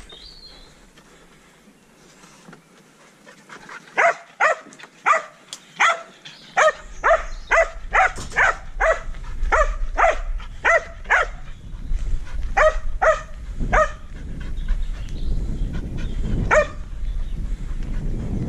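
Border collie barking: a quick run of short barks, about two a second for several seconds, then three more and a single bark near the end. A low rumble comes in about a third of the way through.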